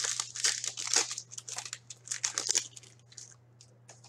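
A hockey card pack's wrapper being torn open and crinkled: a dense crackling for about two and a half seconds, then a few light ticks as the cards are handled.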